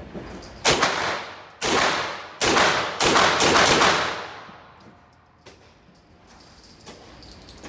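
B&T KH9 semi-automatic 9x19mm pistol firing a string of shots, unevenly spaced over about three and a half seconds, each with a long reverberant tail in an indoor range. A few faint clicks and distant shots follow.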